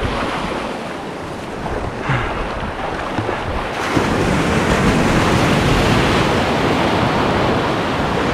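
Ocean surf breaking and washing in the shallows, with wind buffeting the microphone. The wash grows louder and fuller about four seconds in.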